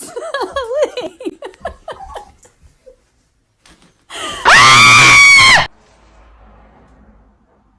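Giggling laughter, then about four seconds in a loud scream held at a steady pitch for about a second and a half, cutting off suddenly.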